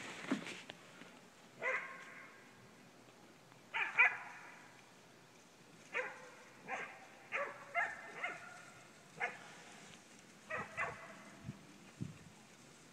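Puppies barking: about a dozen short, sharp barks scattered through the stretch, some in quick pairs, with quiet gaps of a second or two between them.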